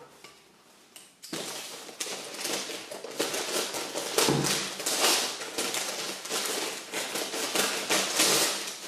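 Brown wrapping paper on a parcel being cut with scissors and ripped open: a dense, loud rustling and tearing with many small sharp crackles, starting about a second in.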